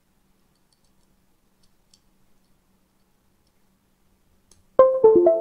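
A few faint clicks from handling the board and its USB cable, then near the end a short three-note computer chime: the Windows device-connect sound as the Wemos D1 Mini board is plugged back into USB.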